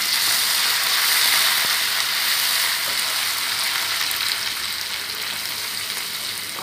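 Hot oil sizzling in a frying pan as green chillies and herbs, just added to browning onions and ginger-garlic paste, are stirred with a spatula. A steady hiss, loudest in the first couple of seconds, then easing slightly.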